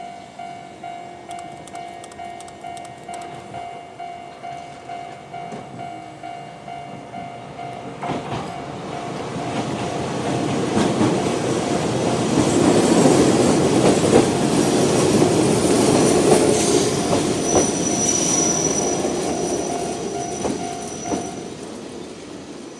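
Level-crossing alarm in the old-type standard sound, ringing about twice a second, while a Toyama Chihō Railway 16010-series electric train approaches, passes over the crossing with wheels clacking on the rails, and moves away. There is a brief high wheel squeal as it passes, and the alarm stops near the end.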